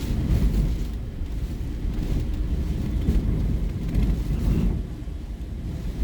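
Hurricane wind buffeting the microphone: a deep, gusting rumble that eases a little near the end.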